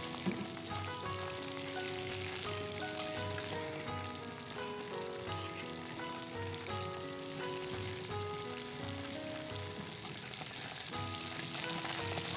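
Battered shrimp deep-frying in hot oil in a wok, giving a steady sizzle, under background music with a melody over a steady beat.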